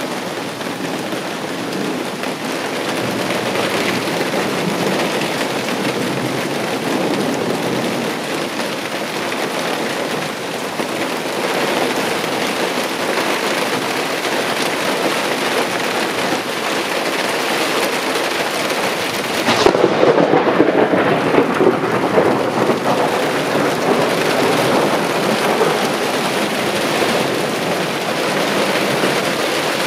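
Heavy downpour of large raindrops hissing steadily. About two-thirds of the way through, a sudden crack of thunder from a close lightning strike breaks in and rumbles for about three seconds.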